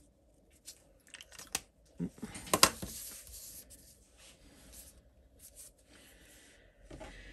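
Hands handling a paper card and a felt-tip marker on a craft mat: scattered light taps and clicks, a sharper click about two and a half seconds in, then a short rustle of paper sliding.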